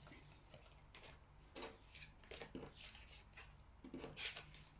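Oracle cards being handled: a few faint, short rustles and light clicks of card against card and table, the loudest near the end.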